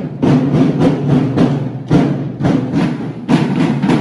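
A children's drum corps playing snare drums in a marching beat: rapid strokes in repeated phrases with short breaks between them.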